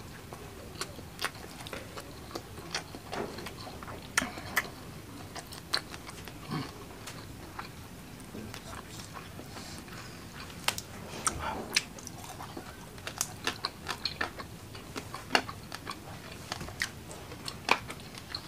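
Close-miked chewing and wet mouth smacks of a person eating fried mackerel with rice by hand: sharp clicks and smacks at irregular intervals.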